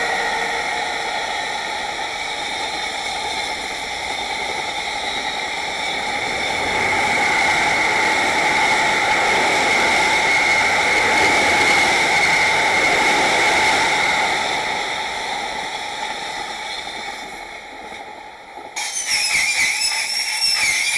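Steady rolling noise of a container freight train's wagons running past on the rails, joined by a silver electric multiple-unit train passing on a nearer track. The noise is loudest in the middle and fades after about fifteen seconds. About two seconds before the end, a sudden harsh, wavering high-pitched sound starts and continues to the end.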